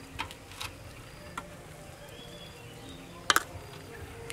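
Metal ladle stirring agati flowers in a metal pot of hot broth, knocking lightly against the pot a few times, with one sharper clank about three seconds in.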